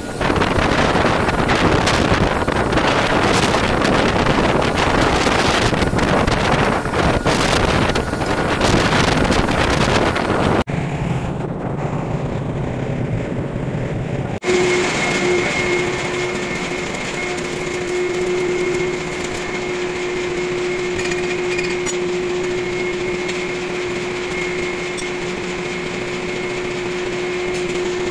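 Wind and sea on a ship's open deck, an even loud rush for about the first ten seconds. Then a short, duller stretch of sea and rumble. From about fourteen seconds in, a steady machinery hum with a constant whine from a ship's workshop.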